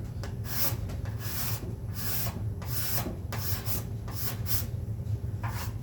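Steel card scraper pushed in short, repeated strokes across a wooden board, roughly two a second, scraping black-dyed epoxy filler flush with the wood.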